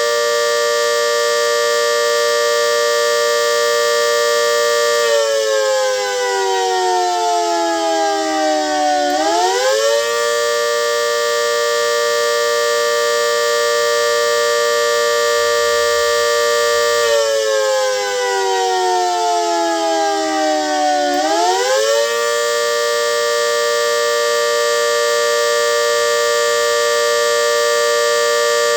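GS CS-10V15QT outdoor warning siren sounding a loud, held chord-like tone. Twice, its pitch sinks over about four seconds and then swings quickly back up to full pitch. It is a siren with bad bearings.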